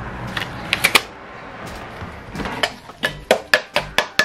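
Hammer blows on the end of a car's drive axle held upright on a workbench: sharp, evenly spaced strikes at about four a second, starting about two and a half seconds in. Before them come a few clicks of metal parts being handled.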